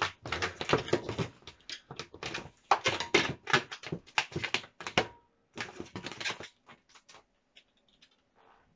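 Long latex twisting balloon being tied off and handled: a dense run of short rubbery squeaks and rubbing clicks, thinning out about five seconds in and nearly dying away near the end.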